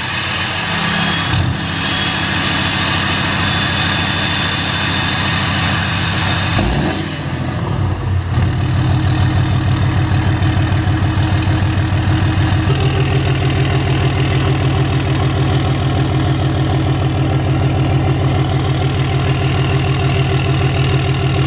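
Ram pickup's Cummins turbo-diesel inline-six idling, heard close at the tip of its aftermarket exhaust. The idle is steady and evenly pulsing, and it grows louder about eight seconds in.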